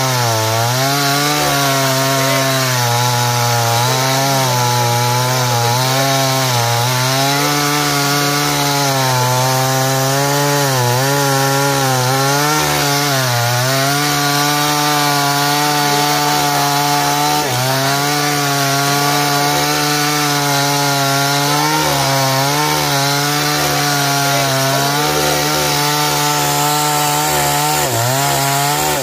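New NewWest chainsaw with a 22-inch bar cutting through a thick sonokeling (Indonesian rosewood) log, the two-stroke engine held at high revs. Its pitch sags briefly every few seconds as the chain bites into the hardwood and then recovers.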